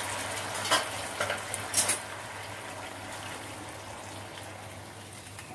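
Hot water just poured into a kadai of fried rice and mung dal, hissing and bubbling in the hot pan and slowly dying down. A few sharp clinks of a utensil against the pan come in the first two seconds.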